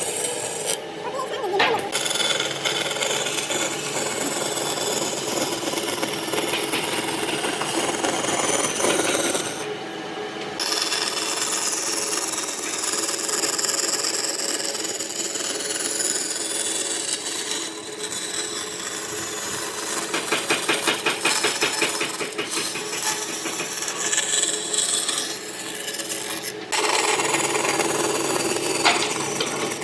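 Hand tools working hardwood: continuous rubbing and rasping on wood. The sound changes abruptly a few times, and there is a run of quick, even strokes about two-thirds of the way through.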